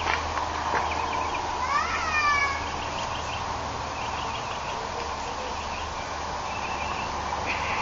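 Outdoor insect and bird background: a steady insect drone over a low steady hum, one animal call with quick pitch glides about two seconds in, then a run of short, evenly repeated chirps.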